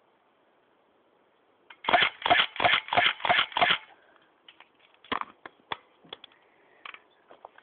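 Semi-automatic electric Tokyo Marui BB gun fired six times in quick succession, about three shots a second, followed by scattered faint clicks and taps.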